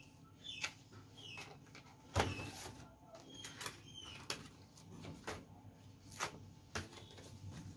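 Stacks of thick card paper handled by hand: cards tapped, shuffled and set down on the duplicator's top, giving a series of sharp knocks and paper rustles, the loudest about two seconds in.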